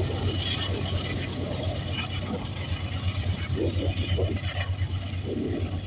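Diesel-electric freight locomotives running, a steady low engine rumble, as they move away along the track.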